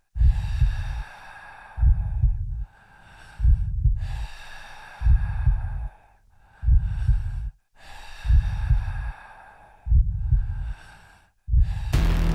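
Heavy, amplified breathing, one breath about every second and a half, each with a deep thumping underneath; music comes in near the end.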